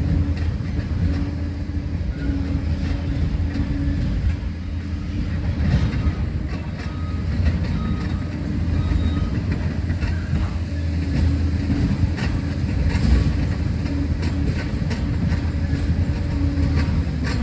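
Liebherr 746 crawler dozer at work: its diesel engine runs steadily while the steel tracks clank and rattle irregularly.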